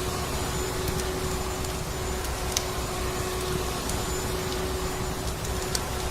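Vacuum cleaner motor running with a steady drone and a constant hum, with a few sharp crackles of a wood fire over it.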